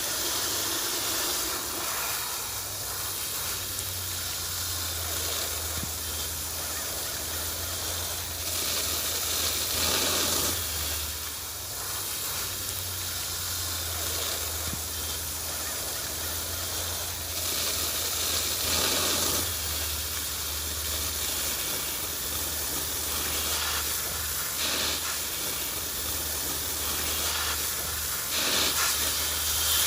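Water jetting out under city-main pressure from a broken plumbing connection: a steady spraying hiss that swells briefly now and then.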